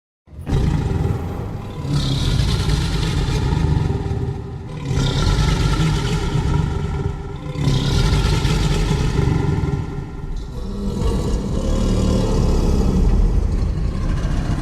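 Homemade Triceratops sound effect: a run of about four long, low creature calls, each around three seconds, over a deep rumble, starting suddenly out of silence.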